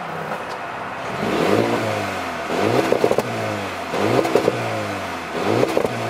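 Mercedes-AMG A35's turbocharged 2.0-litre four-cylinder, heard at its exhaust tip, idling and then revved four times in quick succession while standing still, the pitch shooting up and falling back to idle each time, with a few crackles around the top of the revs.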